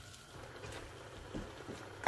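Metal spoon stirring chicken mince in a large metal pot: soft, irregular squelching with a few light strokes of the spoon.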